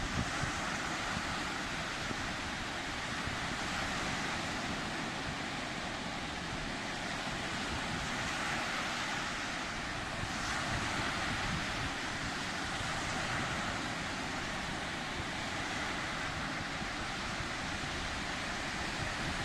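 Sea waves breaking and washing in a continuous rush of surf, swelling and easing gently every few seconds.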